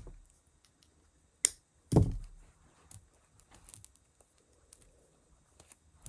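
Round Picasso jasper stone beads being handled on a cloth-covered table: a sharp click about a second and a half in, a heavier knock just after, then a few faint scattered clicks.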